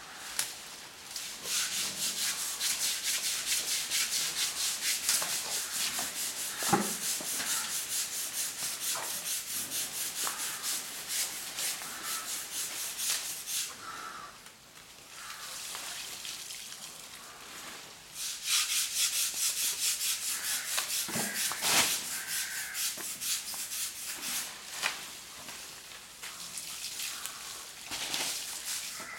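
Fast, rhythmic scrubbing of an elephant's hide as it is washed, several rasping strokes a second, easing off for a few seconds near the middle before picking up again, with a few sharp knocks.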